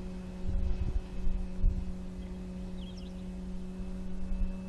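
Steady hum of a brushless electric motor and propeller on a 2100 mm CMPro Cessna 182 Skylane RC model in flight, with wind gusting on the microphone.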